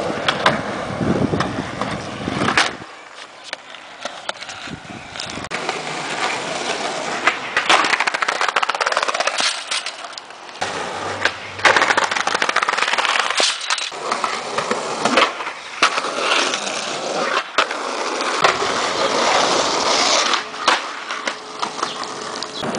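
Skateboard wheels rolling over pavement and concrete, with sharp clacks of the board striking the ground during tricks. The rolling noise changes abruptly several times from one short take to the next.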